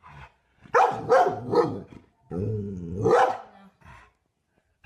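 A dog barking in two short runs, the first about a second in and the second just after the middle.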